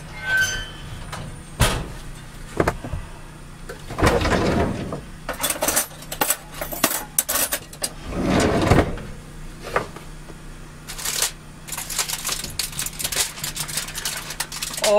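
Kitchen handling sounds: scattered clicks and knocks of a skillet and cookware being moved, with longer rustles, then a dense crinkling of aluminium foil as it is peeled back from the pan near the end. A low steady hum runs underneath.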